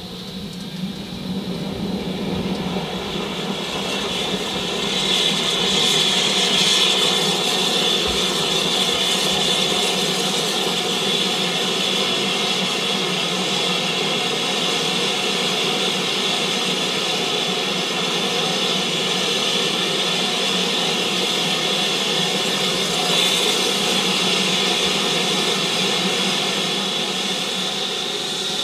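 BR Standard Class 4MT 2-6-0 steam locomotive standing with steam escaping, a steady loud hiss that builds over the first few seconds and then holds.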